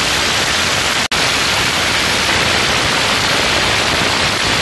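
Cordless impact wrench hammering continuously on a 50 cc scooter's tight rear axle nut to break it loose: a loud, dense rattle with a momentary break about a second in.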